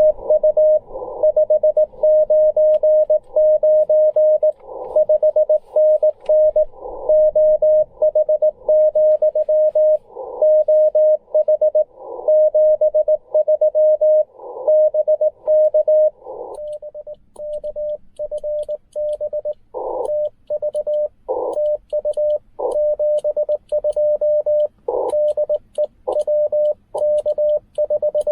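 Morse code (CW) tones from a Ten Tec Argonaut V transceiver: one steady pitch keyed on and off in dots and dashes. From about sixteen seconds in, faint high clicks run in step with the keying.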